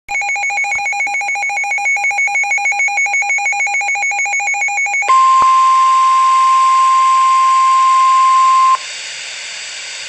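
Midland NOAA weather radio sounding an emergency alert for a broadcast warning. Its own rapid electronic beeping runs for about five seconds, then the broadcast's steady single-pitch warning alarm tone sounds for nearly four seconds and cuts off into radio hiss.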